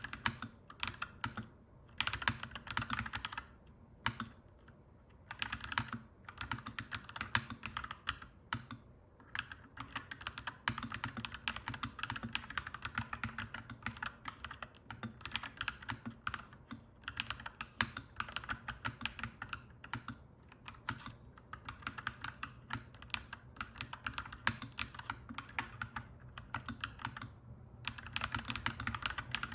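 Mechanical keyboard typing: rapid, clacky keystrokes in continuous runs, broken by brief pauses about four seconds in and near the end.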